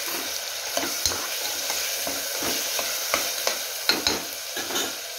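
Tomatoes and onions sizzling in oil in a pressure cooker while a metal ladle stirs them, scraping and knocking against the pot with a dozen or so irregular strokes; the sharpest knocks come about four seconds in.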